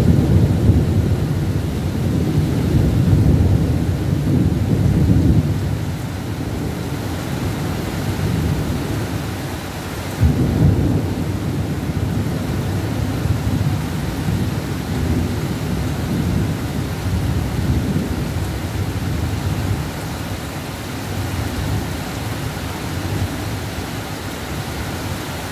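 Thunder rumbling over steady pouring rain. A clap breaks suddenly at the start and rolls on for about six seconds, then a second one comes about ten seconds in and rumbles on more softly.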